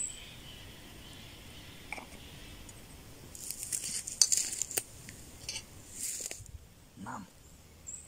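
Footsteps crunching through dry fallen twigs and forest litter, a crackly rustle with several sharp twig snaps lasting about three seconds in the middle. A brief low voice sound follows near the end.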